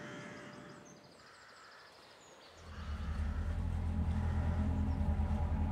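A quiet stretch with a few faint high chirps, then a low, steady rumbling drone fades in about two and a half seconds in.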